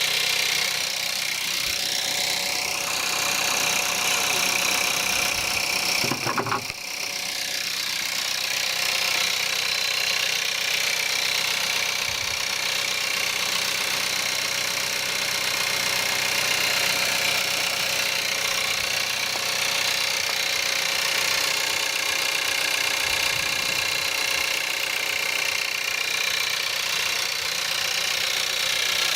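Skoda Octavia 1.4 TSI turbocharged four-cylinder petrol engine running steadily in the cold after a cold start at -5 °C, with a diesel-like rattling clatter. The level dips briefly about six seconds in.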